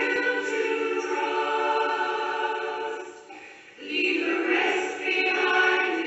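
A choir singing in held, sustained chords, with a short break between phrases a little past three seconds in before the voices come back in.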